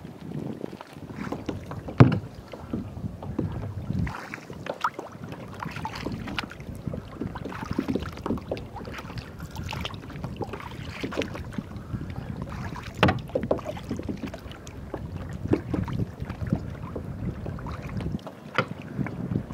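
Kayak paddling through shallow water: irregular paddle splashes, drips and gurgles of water, with a sharp splash about two seconds in and some wind on the microphone.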